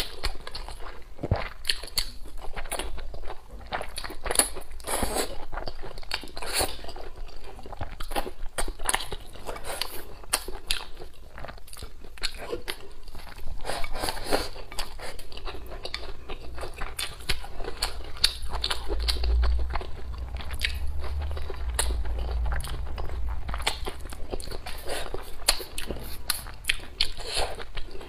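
Mukbang eating sounds: wet chewing and biting of stir-fried eggplant and green chili peppers with rice, full of small sharp mouth clicks, as chopsticks push the food from the bowl into the mouth.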